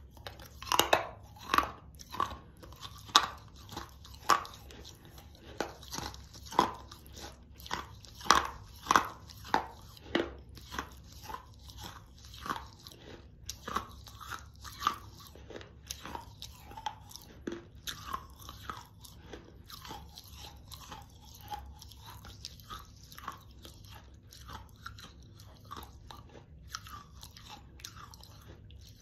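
A hard baked Mexican clay saucer being bitten and chewed between the teeth: sharp, loud crunches about once a second for the first ten seconds, then smaller, quieter crunching as it is ground down.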